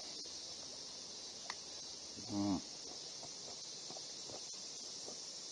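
Steady, high-pitched insect chorus, like crickets chirring. A brief low call falling in pitch sounds once, a little over two seconds in.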